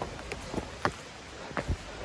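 Hikers' footsteps on a mountain trail: irregular knocks and scuffs, several over two seconds, above a steady hiss.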